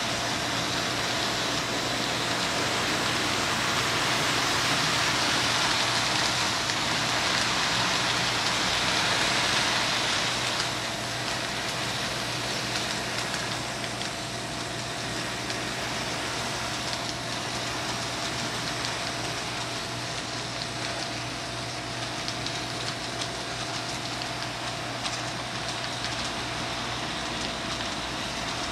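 Model freight train rolling past on a layout: the cars' wheels running on the track make a steady rushing noise with a constant hum under it. It is a little louder for the first ten seconds, then settles slightly quieter.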